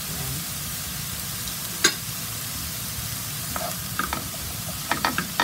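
Diced carrots, peas and onion sizzling steadily in oil in a nonstick frying pan, with one sharp knock about two seconds in. From about halfway, a wooden spoon stirring the vegetables clicks and scrapes against the pan.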